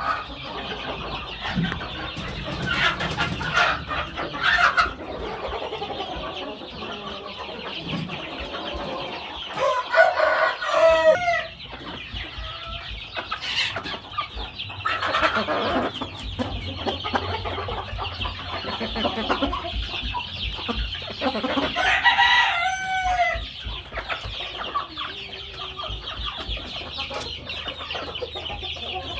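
Chickens clucking in a pen, with a rooster crowing twice: once about ten seconds in and again about twenty-two seconds in.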